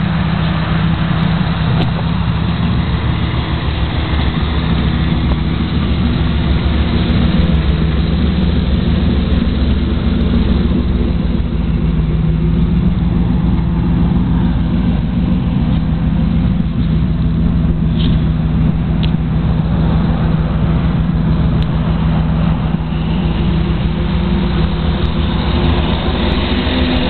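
Chevrolet Camaro's LT1 5.7-litre V8 idling steadily, a low, even exhaust note with no revving.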